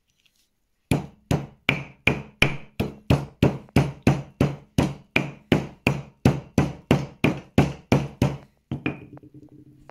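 Washed bracken rhizomes being pounded with a hand stone on a flat stone mortar to free their starch: about twenty steady blows, close to three a second. After a short pause comes a last knock that rings on for about a second.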